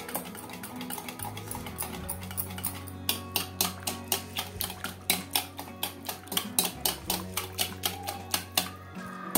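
Wire balloon whisk beating curd in a plastic bowl, its wires tapping the bowl in a quick rhythmic ticking of about four or five strokes a second, over soft background music.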